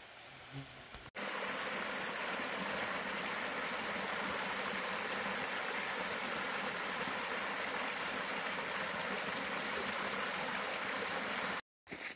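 Shallow rocky stream running over cobbles and stones, a steady rush of water. It starts abruptly about a second in and cuts off suddenly just before the end.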